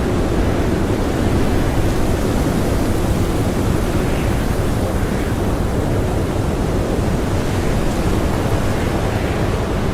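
Strong blizzard wind blowing steadily, a dense low rush with no gusts standing out.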